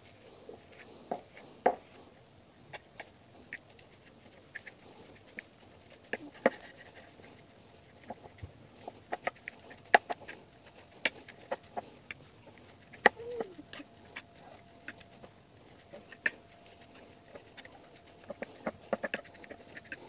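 A metal fork clinking and scraping against a ceramic plate while mashing hard-boiled eggs: irregular sharp clicks, coming in quick clusters at times.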